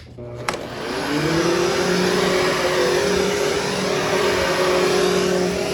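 A Hoover HushTone upright vacuum cleaner is switched on with a click about half a second in. Its motor winds up in pitch and then runs at a steady whine.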